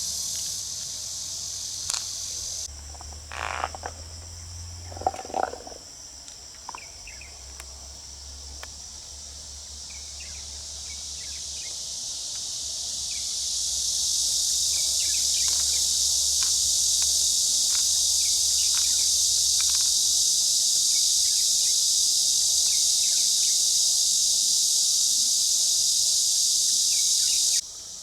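A steady, high-pitched outdoor insect chorus that swells louder about halfway through and then holds until it cuts off abruptly near the end. A few short knocks and clicks sound in the first several seconds.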